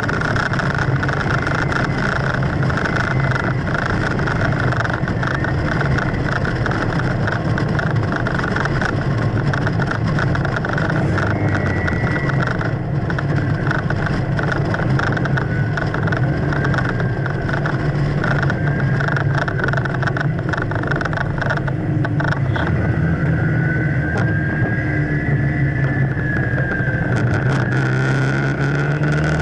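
A car driving at road speed: a steady engine drone under tyre and wind noise, with wind buffeting the outside microphone. A higher whine rises and falls about three-quarters of the way through.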